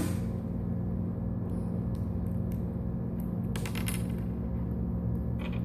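Small plastic Lego pieces clicking and clattering as they are handled, with a quick run of clicks a little past the middle, over a steady low hum.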